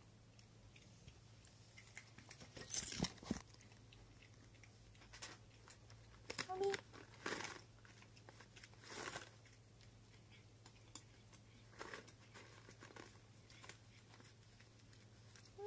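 Cats crunching and chewing hard Greenies dental treats: scattered crisp crunches, loudest about three seconds in, with further bursts of chewing around six to nine seconds and near twelve seconds.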